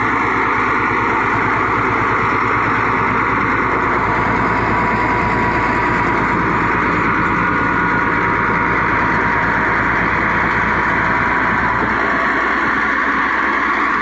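Crawler bulldozer's diesel engine running loud and steady under heavy load as its blade pushes a mound of earth, its firing beat even throughout.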